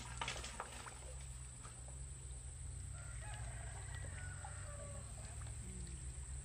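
Chickens clucking, with a rooster crowing faintly about three seconds in, over a steady low hum.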